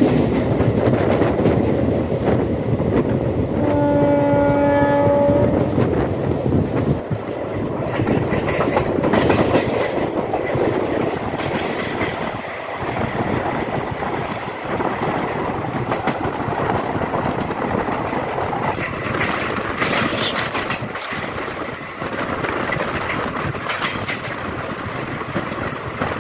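Express passenger train running, heard from an open coach door: a steady rumble and rattle with the clatter of wheels over rail joints. One horn blast from the locomotive sounds about four seconds in, lasting a second and a half.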